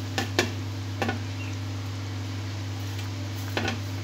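A metal spoon clinking against the rim of a cooking pot in a few sharp taps, in quick pairs near the start, about a second in and near the end, over a steady low hum.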